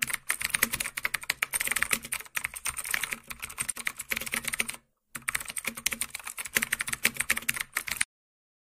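Sound effect of rapid computer-keyboard typing: a dense run of key clicks. It pauses briefly about five seconds in and cuts off abruptly near the end.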